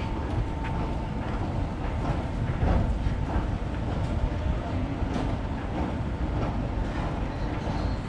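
Steady low rumble of street noise, with scattered light clicks and a faint thin steady whine.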